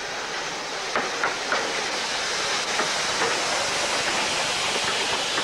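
A small 2 ft gauge Decauville 0-6-0T steam tank locomotive, built in 1920, arriving with its coaches: a steady hiss of steam with irregular clicks and knocks from the wheels over the rail joints as the train rolls past. The hiss grows a little stronger after the middle.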